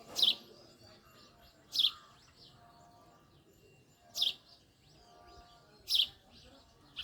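Male house sparrow chirping: four loud, sharp chirps a second or two apart, each falling in pitch, with fainter chirping between them.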